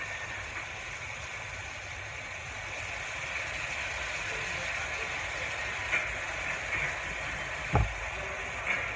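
Pork and garlic sizzling steadily in a hot aluminium wok, with a few light clicks and one dull thump near the end.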